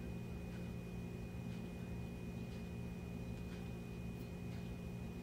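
Quiet kitchen room tone: a steady low hum with a thin high whine, and a few faint soft ticks from hands pinching and rolling flour dough into dumplings.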